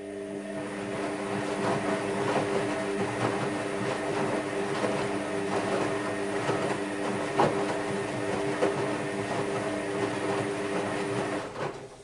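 The drum of an AEG Lavamat Protex L72475FL front-loading washing machine turns for about eleven seconds: a steady motor hum under the noise of wet laundry tumbling, with scattered soft knocks. The hum and tumbling stop shortly before the end.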